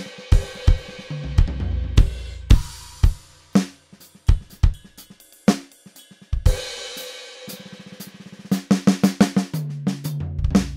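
ATV aDrums Artist electronic drum kit played through its 'Classic '70s' sampled kit: kick, snare and hi-hat with cymbal crashes. Near the end comes a fast fill of rapid strokes down the toms, ending on a final hit that rings out.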